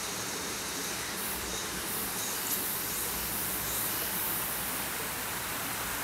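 Shallow mountain stream running over rocks: a steady, even rushing hiss.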